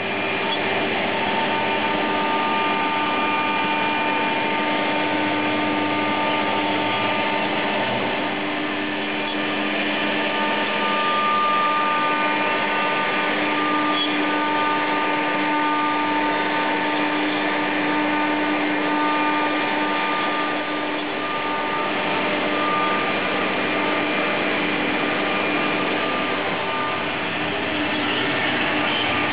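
CNC router cutting MDF, its spindle running steadily with a constant whine over a loud hiss.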